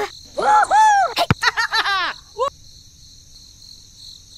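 High-pitched squeaky chattering of a cartoon-style character voice, several short calls that swoop up and down, with a few sharp clicks among them, over a steady high chirring like crickets.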